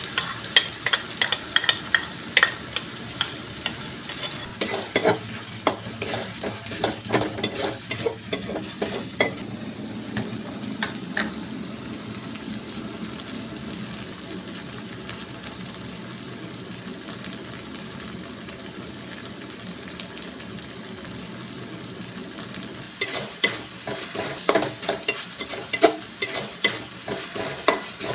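Onions and spice paste sizzling in hot oil in a metal wok, with a metal spatula scraping and knocking against the pan in quick strokes for the first twelve seconds or so and again near the end; in between only the steady sizzle is heard.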